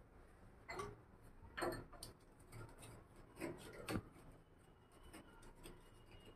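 A few short scrapes and knocks of a white plastic water-pipe fitting being handled against a chiselled hole in a plastered wall. There are about four, and the one near four seconds in is the sharpest tap.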